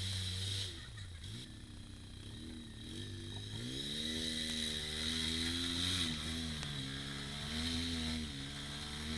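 Polaris RZR side-by-side's engine heard from inside the cab: the revs drop about a second in, then climb again and rise and fall repeatedly at low trail speed. A steady high whine runs over the engine.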